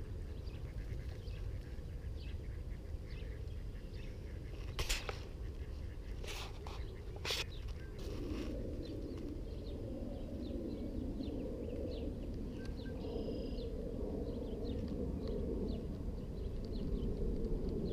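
Birds chirping over a steady low rumble, with three sharp clicks about five to seven seconds in.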